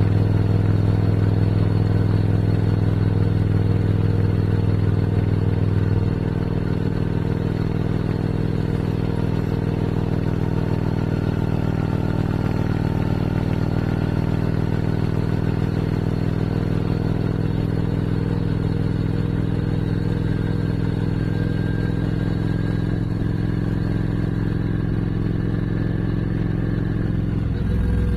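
Motorcycle engine running at a steady speed while cruising, a steady low drone; it becomes quieter about six seconds in.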